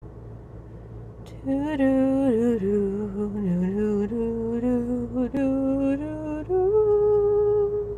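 A woman singing wordlessly, improvising slow sustained notes that slide down and step back up in pitch, ending on one long held note. The voice comes in about a second and a half in, heard inside a car's cabin.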